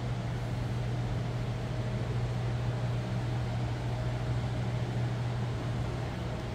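Large air-conditioning unit running: a steady low hum over an even hiss.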